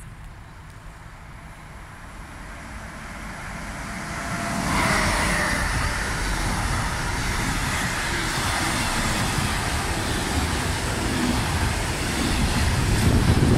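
Siemens Vectron (Class 193) electric locomotive approaching and passing through at speed, its noise growing over the first few seconds to a peak about five seconds in. A long train of container wagons then follows, steady wheel-on-rail noise with low rumble.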